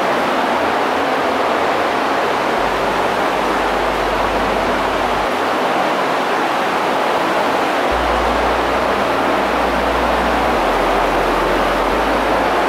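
Steady, even rushing noise like moving air, unchanging in level.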